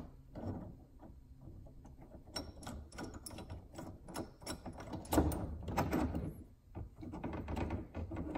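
Scattered metal clicks, clinks and knocks as a bearing puller is fitted and hand-tightened on a raw water pump's bearing housing held in a bench vise. The loudest knocks come about five seconds in.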